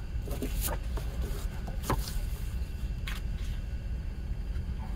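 Hands handling paper CD packaging and a booklet, making a few short rustles and taps in the first three seconds over a steady low rumble.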